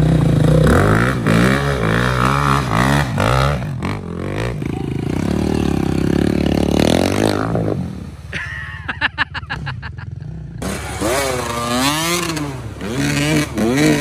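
Dirt bike engines revving hard through a muddy water crossing, the pitch rising and falling as the throttle is worked. After a lull with a rapid pulsing about eight seconds in, a second bike revs up again near the end.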